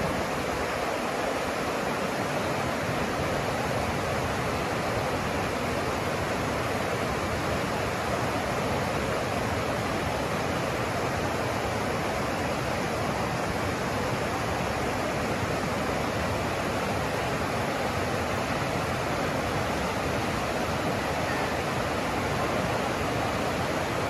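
Fast mountain river rushing over rocks through whitewater rapids: a steady, unbroken rush of water.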